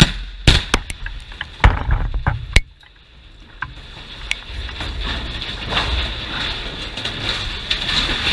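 Explosive demolition charges firing at the base of a steel water tower: a sharp blast at the start, then several more loud cracks over the next two and a half seconds. After that a steady noise builds as the tower begins to topple.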